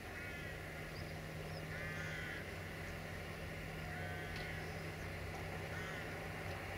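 Diesel-hydraulic shunting locomotive's engine running with a steady low hum as it creeps along hauling tank wagons. Crows caw several times, about every two seconds.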